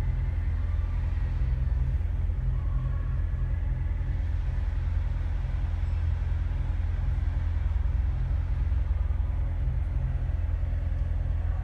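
Supercharged 6.2-litre V8 of a 2015 Corvette Z06 idling, a steady low rumble heard from inside the cabin.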